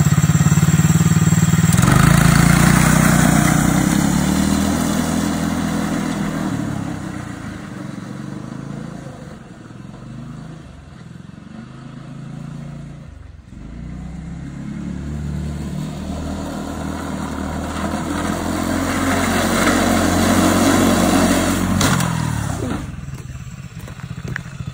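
Small engine of a child's mini snowmobile revving up as it pulls away. The engine note fades into the distance and then grows louder again as the machine comes back. Near the end it cuts off abruptly with a knock, as the snowmobile hits something and stops dead.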